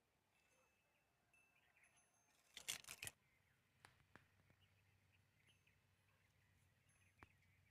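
Near silence: faint outdoor ambience with faint high chirps coming and going, a brief crackling burst about three seconds in, and a few soft clicks after it.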